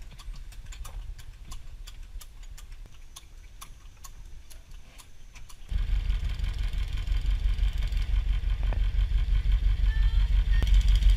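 Light clicking of a coasting bicycle's freewheel, then, after a sudden cut about six seconds in, a boat's engine running loud with a fast low throbbing, heard from on board.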